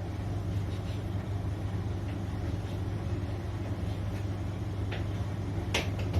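Cookology CMVD25WH mini vented tumble dryer running: a steady motor hum with the drum turning, and a few light knocks near the end.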